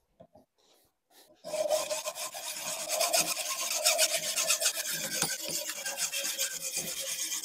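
Hacksaw with a 24-teeth-per-inch blade sawing through 3/4-inch low carbon steel pipe held in a vise, in steady two-handed strokes using the whole length of the blade, with a steady note running through the cutting. It starts about a second and a half in, after a few light clicks.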